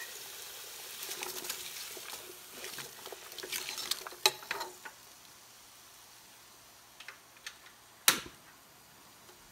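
Chopped onion and halved potatoes frying in oil in a large pot: a sizzle with stirring scrapes and clinks through the first half, then a quieter sizzle with one sharp knock near the end.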